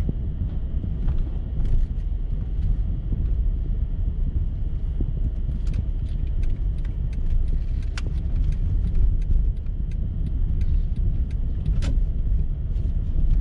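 Car driving slowly, heard from inside the cabin: a steady low rumble of engine and tyre noise, with scattered light clicks throughout.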